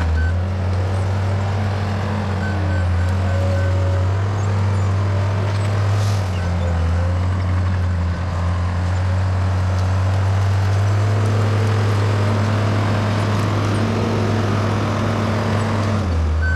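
Case 850K crawler bulldozer's diesel engine running, its low drone shifting in pitch every few seconds as the load changes.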